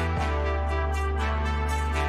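Background music with sustained bass notes and a steady beat; the chord changes just after it begins.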